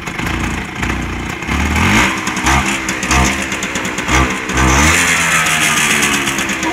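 Vespa scooter's two-stroke engine revved in a series of quick throttle blips, then held and climbing steadily in revs from about five seconds in, run with the choke off to check the carburetion.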